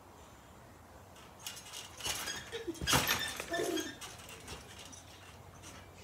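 Trampoline bouncing and landing during back tuck attempts: a cluster of thuds and spring creaks from about a second and a half in, with the loudest hit near three seconds, along with a few short squeaks.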